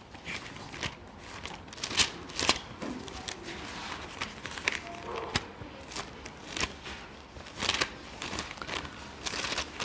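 Thin paper pages of a Bible being flipped and rustled, with irregular crackles and short swishes while a passage is looked up.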